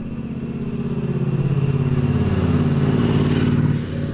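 A motor vehicle engine running with a low, pulsing rumble that grows louder for about three seconds, then cuts off sharply near the end.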